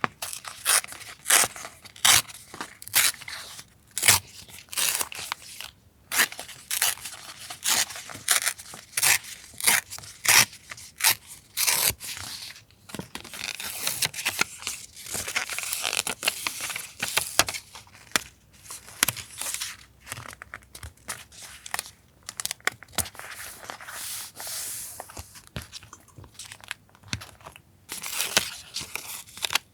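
Paper being handled and torn for a collage journal: a run of short sharp paper sounds, about two a second, for the first dozen seconds. After that comes a longer stretch of denser rustling and crinkling with scattered sharper sounds.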